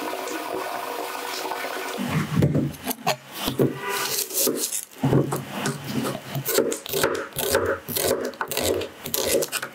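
Tap water running steadily into a sink, then, about two seconds in, a chef's knife slicing a small red onion on a cutting board: short crunching cuts with the blade tapping the board, about two a second.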